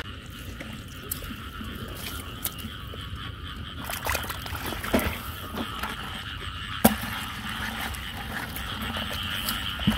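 A chorus of frogs calling steadily from the rain-soaked rice field. A few sharp knocks and splashes cut through about halfway and again near the end as a hand grabs a crab in a puddle.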